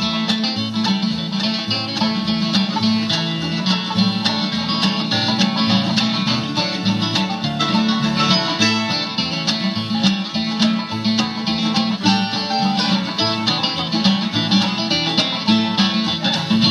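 Live bluegrass band playing an instrumental break, banjo and guitar picking quick notes over a steadily stepping bass line.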